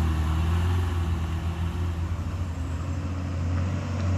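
A heavily loaded truck's diesel engine running steadily under load as it climbs a steep incline, a low, even drone.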